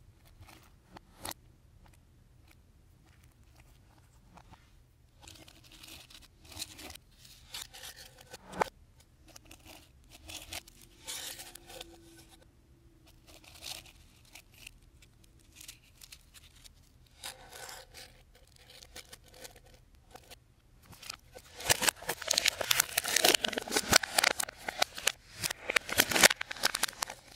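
Textured slime being squeezed and pressed by hand, giving scattered small crackles and pops, then a dense, louder run of crackling for the last five seconds or so.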